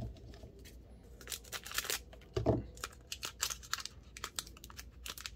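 Foil wrapper of a Pokémon booster pack crinkling and tearing as it is pulled open by hand, a run of sharp crackles. A brief murmur of voice about halfway through.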